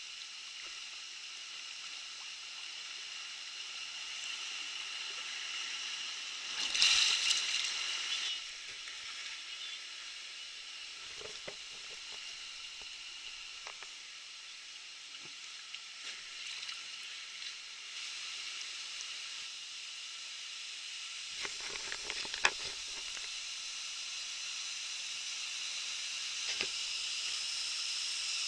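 Steady hiss of a rushing river stream around a drifting inner tube, with a louder surge of water noise about seven seconds in and a few sharp knocks a little past twenty seconds.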